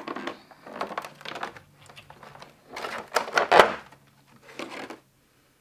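Clear plastic blister packaging crinkling and clicking as a figurine and its parts are handled and taken out of it, in irregular bursts, loudest about three and a half seconds in; it stops about a second before the end.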